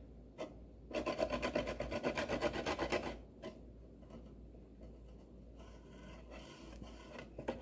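A small carrot being grated on the fine side of a hand grater: a quick run of rasping strokes from about a second in to three seconds in, then fainter, slower scraping.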